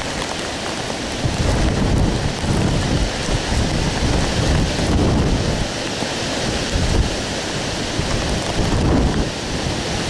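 Hurricane wind and heavy rain: a steady hiss of rain with gusts of wind rumbling and buffeting in irregular surges.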